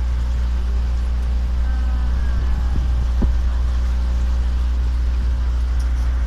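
Tour catamaran's engine running steadily, a deep, even drone heard from on board.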